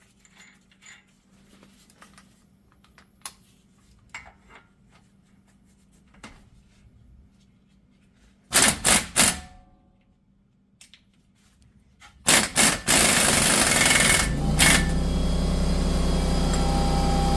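Light clicks of an axle nut and socket being fitted by hand, then an impact wrench driving the axle nut home in three short rattling bursts and a few more. A loud steady machine sound takes over in the last few seconds.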